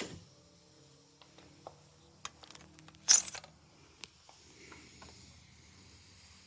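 Light metallic clicks and clinks of riveting tools and rivets being handled, with one short, loud, sharp burst about three seconds in.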